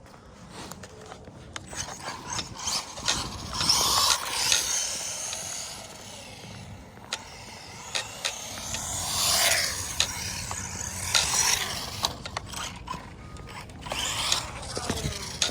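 Traxxas Mini E-Revo RC truck driving on concrete: its electric motor whines up and down in pitch with the throttle, over the scrubbing and scraping of its tyres, with a few sharp knocks.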